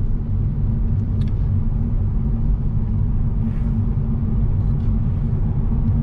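Steady low rumble of a car's engine and tyres on the road, heard from inside the cabin while driving at around 40 km/h, with a constant low hum.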